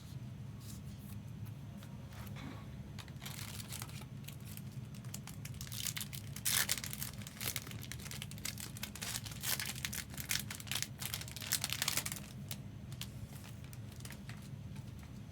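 Trading card pack wrapper being torn open and crinkled, in several bursts of crackling rustle, over a steady low hum.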